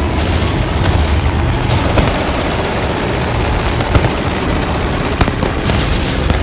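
Fireworks bursting overhead: a dense, rapid crackle of reports, like a machine-gun barrage, with occasional booms.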